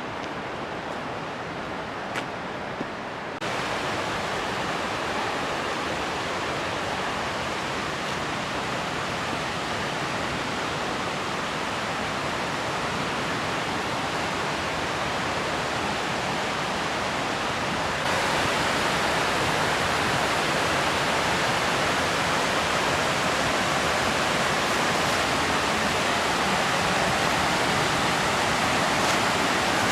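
Waterfall cascade rushing steadily, growing louder in abrupt steps about three seconds in and again about eighteen seconds in.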